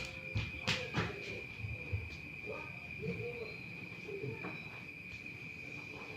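Insect trilling steadily at a high, unchanging pitch, with a few sharp knocks in the first second or so.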